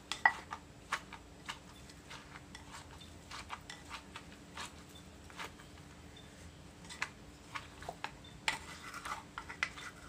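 Wooden pestle knocking in a clay mortar and a spoon scraping and tossing shredded green papaya for som tam: scattered knocks and clatters, about one a second at first and coming thicker near the end.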